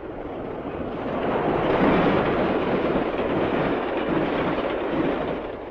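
Steam train rushing past at speed while scooping water from a track pan between the rails: a dense rushing noise that swells about two seconds in and fades out near the end.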